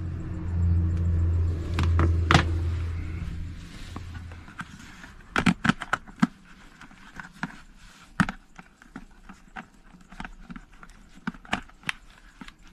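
A steady low hum that stops about four and a half seconds in, then a scattered series of sharp plastic clicks and knocks as drone batteries are handled and fitted to their charger.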